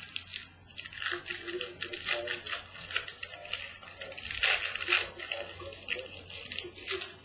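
Packaging of a sealed trading-card box rustling and crinkling in irregular crackles, with some tearing, as the box is opened.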